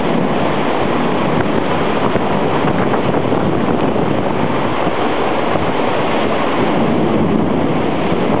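Hurricane wind and heavy rain making a loud, steady rushing noise, with wind buffeting the microphone.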